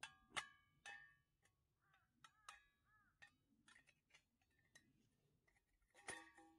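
Steel parts of a small wood-burning camp stove clinking together and ringing as they are fitted. There are three sharp metallic clinks in the first second, lighter taps through the middle, and another loud ringing clink about six seconds in.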